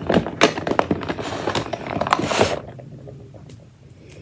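Hands rummaging through a zippered makeup bag: cosmetics and brushes clicking and rustling against each other in a quick run of small clicks, which dies down to a few faint clicks after about two and a half seconds.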